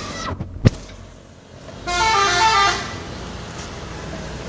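Telolet horn, a multi-tone musical air horn, sounding a quick run of stepped notes lasting about a second, starting about two seconds in. A sharp click comes shortly before it.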